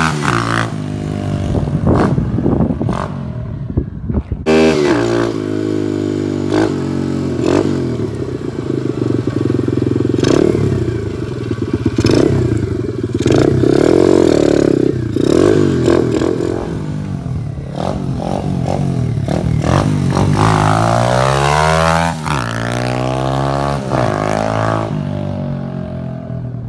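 Tao Tao DB17 125 cc dirt bike's single-cylinder four-stroke engine running under a rider, its pitch rising and falling several times as the throttle is opened and closed while the bike rides past. The engine grows fainter near the end.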